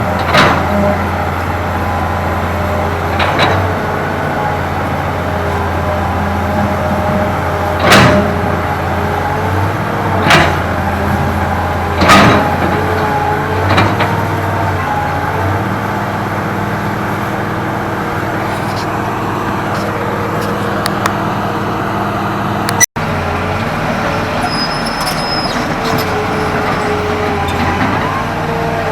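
Hydraulic excavator's diesel engine running steadily under work, with several sharp metallic clanks from the machine in the first half.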